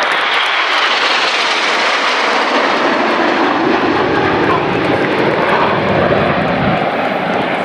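Formation of nine BAE Systems Hawk T1 jet trainers passing low with their Adour turbofan engines running, a loud continuous jet rush. The sound deepens as the formation goes by.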